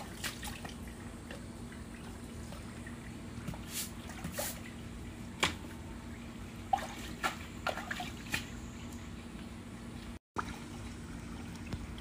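Shallow water trickling in a narrow concrete gutter, with a scatter of small splashes and drips in the middle of the stretch as feet and hands dabble in it. A faint steady hum sits underneath.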